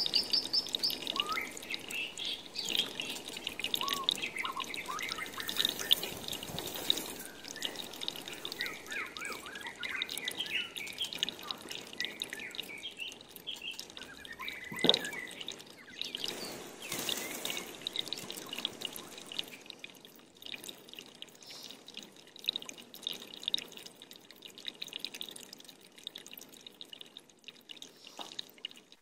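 Water dripping in scattered drops, with small birds chirping through roughly the first half; after that only the sparser drips remain.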